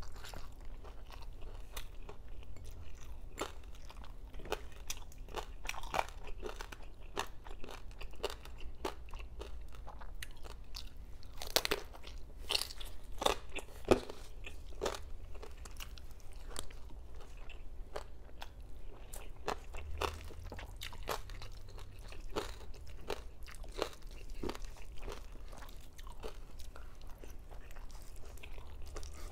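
Close-up crunching and chewing of crispy fried pork belly (lechon kawali) with its crackling skin, in irregular sharp crunches throughout, the loudest ones about halfway through.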